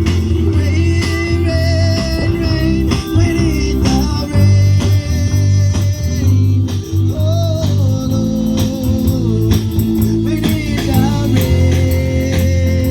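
Live gospel song: a singer with guitar accompaniment, holding long notes over steady strumming.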